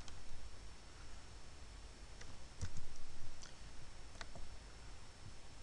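A handful of scattered computer mouse clicks over a faint steady hum.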